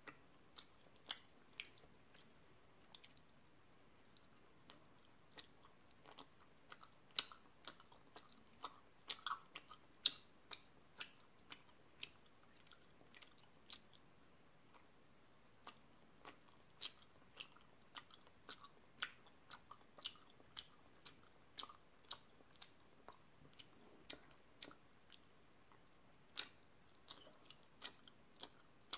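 Chewing of large gummy worm jelly candies: faint, irregular mouth clicks and smacks, about one or two a second, a little denser and louder around a third of the way in.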